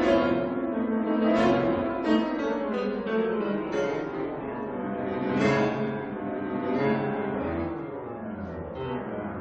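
Background music played on a keyboard instrument, a run of plucked or struck notes.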